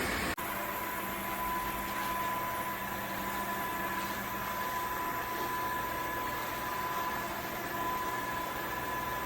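Dreame H12 Pro wet-dry vacuum running steadily, a whirring hiss with a thin high whine, with a brief break about half a second in.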